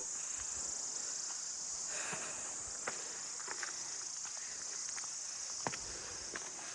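Steady high-pitched chorus of insects, with a few scattered footsteps on the trail.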